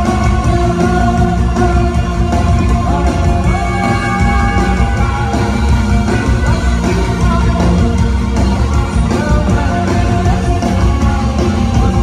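Live rock band playing loud: electric guitar, bass guitar and drums, with a lead vocalist singing held, bending notes into a microphone over them.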